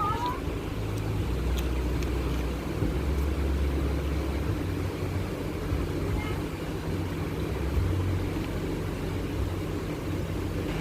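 A motor vehicle's engine running steadily, a low hum that shifts in pitch a few times.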